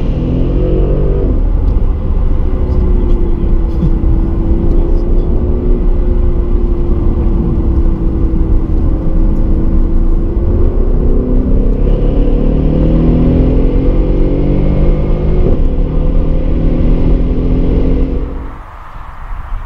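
Mercedes SL 63 AMG's twin-turbo V8 heard from inside the cabin at motorway speed, over a steady road and wind rumble. The engine note rises briefly, holds one steady pitch for several seconds, then climbs gradually as the car accelerates. Near the end the sound drops away suddenly.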